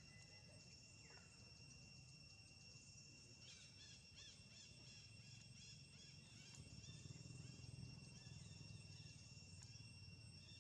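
Quiet outdoor insect chorus: a steady high drone on a few fixed pitches, with a run of short high chirps for about three seconds near the middle.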